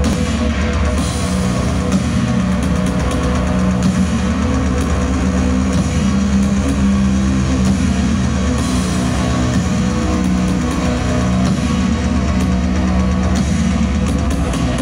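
Live band playing loud music through a large hall's sound system, a dense, steady wall of sound with sustained low notes.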